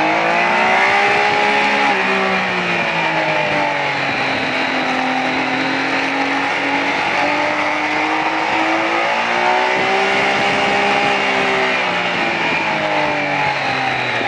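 Triumph Speed Triple's 1050 cc three-cylinder engine running hard at high revs, its note rising and falling with the throttle through the bends, with a steadier stretch in the middle. A steady rush of wind noise runs underneath.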